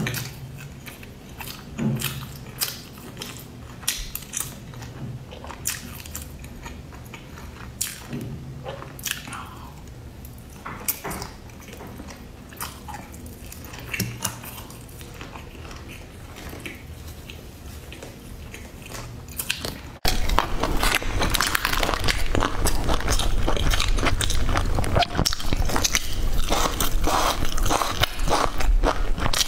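Close-miked chewing and biting of crunchy food, with scattered sharp crunches. About 20 seconds in it jumps abruptly much louder into dense, continuous crackly crunching.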